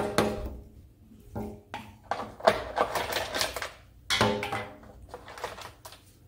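Plastic dolls and a plastic toy ball clicking and knocking against a glass tabletop as they are set down and moved, a quick run of sharp taps.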